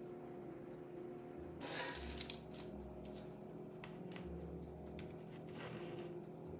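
Metal spatula scraping and lifting baked cookies off a parchment-lined baking sheet and setting them on a wire cooling rack: light scrapes and small clicks, with a louder clatter about two seconds in. A low steady hum runs underneath.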